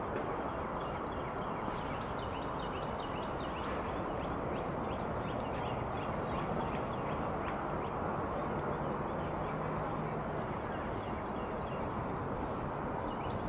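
Outdoor ambience: many short, quick chirps, like birds calling, over a steady background noise.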